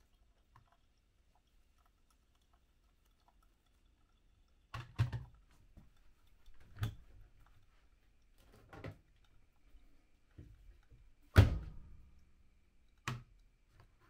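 Irregular knocks and thunks of kitchen items being handled and set down on a countertop, starting about five seconds in after near silence; the sharpest thunk comes about two-thirds of the way through.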